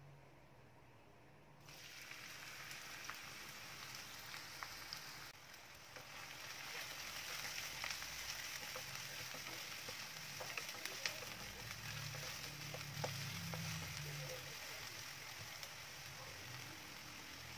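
Food sizzling in hot oil in a pan, with a steady hiss and scattered small crackles. It starts about a second and a half in and grows louder a few seconds later.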